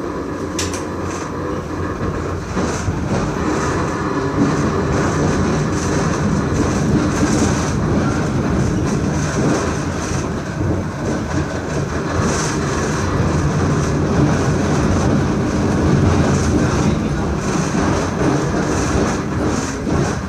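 E1 tram with a C3 trailer running along the track: a steady rumble of wheels on rail and the cars' running gear, with a sharp click about half a second in.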